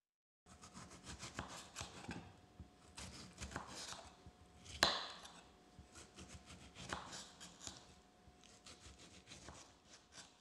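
A small kitchen knife slicing through ripe tomatoes on a bamboo cutting board, starting about half a second in. The blade cuts through the flesh in quick sawing strokes with taps on the board, and one sharper knock of the knife against the wood comes about five seconds in.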